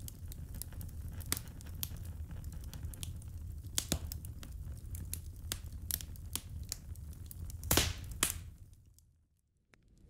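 Glowing wood embers crackling with irregular sharp pops over a low rumble. A cluster of louder pops comes about three-quarters of the way through, then the sound fades away to near silence in the last second.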